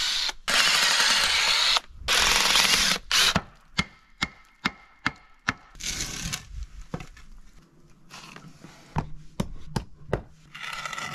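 Cordless driver backing screws out of the wooden forms around a fresh concrete pad in two long rattling runs over the first three seconds, then a string of sharp uneven knocks from a hammer and loose form boards.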